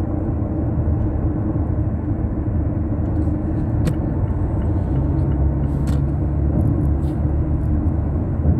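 Car cabin noise at highway speed: a steady low rumble of road and engine. A steady low hum joins in about five seconds in.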